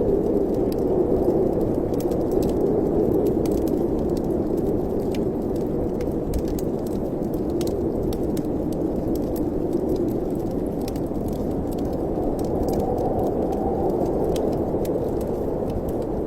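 Wood fire in a fireplace crackling with many small, sharp, irregular pops over a steady low rush of wind.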